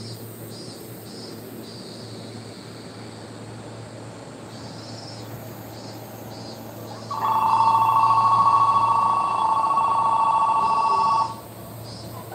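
Station platform's electric bell ringing for about four seconds, starting suddenly about seven seconds in and cutting off sharply: the signal that a train is approaching the platform. Faint repeated high chirps continue underneath.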